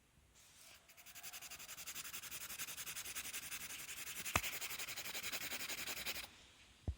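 Pencil scratching across paper in rapid, even back-and-forth strokes, about eight a second, starting about a second in and stopping shortly before the end. A sharp tick comes midway and a short knock comes just before the end.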